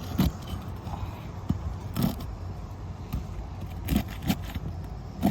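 Asphalt roof shingles being pried loose, a handful of short scrapes and cracks as they come away and tear, over a steady low rumble.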